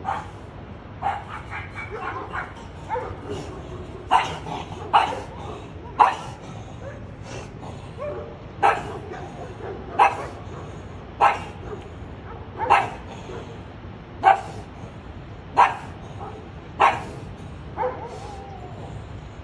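Stray dogs barking at a horse, with sharp, repeated barks. A few irregular barks come first, then from about four seconds in a steady run of single loud barks, roughly one every second and a half.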